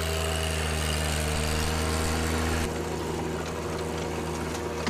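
John Deere 1025R sub-compact tractor's three-cylinder diesel engine running at a steady speed. It turns slightly quieter and thinner in the low hum a little under three seconds in.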